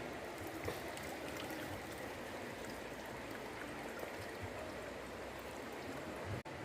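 Steady rush of flowing river water with a few faint ticks. The sound briefly cuts out near the end.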